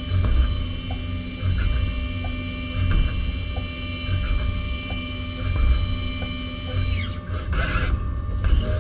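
Five-axis CNC machining centre running: a steady high spindle whine over a low rumble, with faint ticks. About seven seconds in, the whine glides down and stops as the spindle winds down and retracts.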